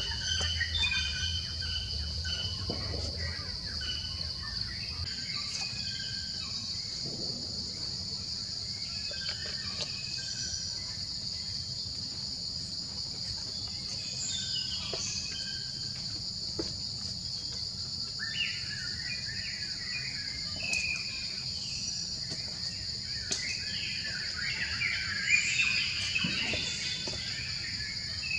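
Steady high-pitched insect drone, with a second, higher insect tone joining about five seconds in. Scattered short chirps come over it, busiest near the end.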